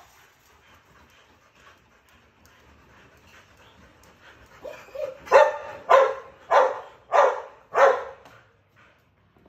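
A Rottweiler barking: a run of five loud barks in quick, even succession about five seconds in, after a few faint earlier sounds.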